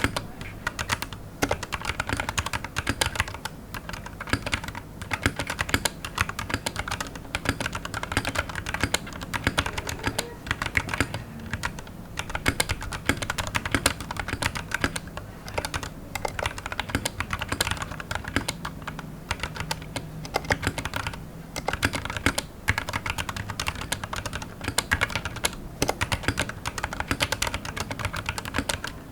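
Steady typing on a Royal Kludge RK61 mechanical keyboard with lubed RK Red linear switches and XDA-profile keycaps: a dense run of key presses with a few short pauses.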